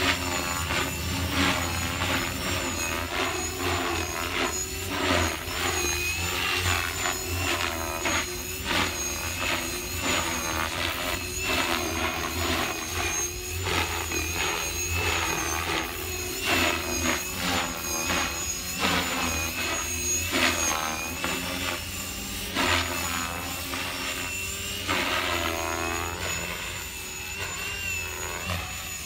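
Radio-controlled model helicopter flying aerobatics: a steady high motor whine under rotor blades that surge and swish with each manoeuvre, the pitch rising and falling as the load changes.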